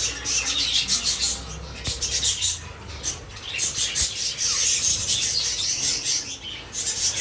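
A flock of budgerigars chattering in a dense, rapid stream of high chirps, with wings flapping, as they squabble over seed trays while feeding.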